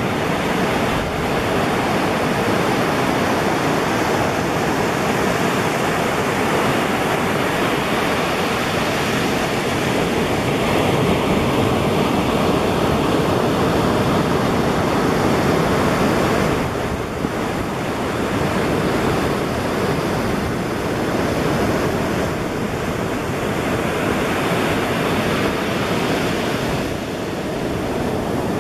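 Ocean surf breaking and washing up a sandy beach: a steady rush of waves that eases briefly a couple of times.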